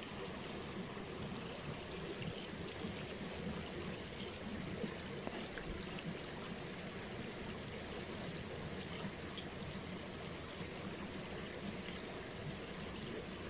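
Shallow, stony creek running and rippling over its bed: a steady, even water noise.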